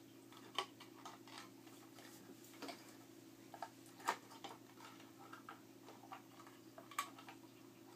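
Faint, irregular clicks and light knocks as the aluminium housing and back cover of an LED flood light are handled and fitted together, the sharpest about four seconds in and again near the end, over a steady low hum.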